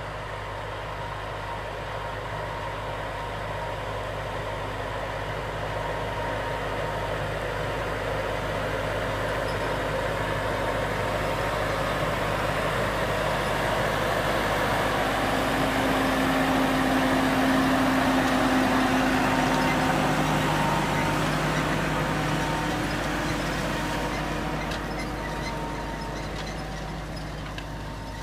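Valtra N163 tractor's diesel engine running steadily while pulling a Miedema CP 42 potato planter past, with the planter's mechanical noise mixed in. It grows louder as it approaches, is loudest about two-thirds of the way through as it passes, then fades as it moves away.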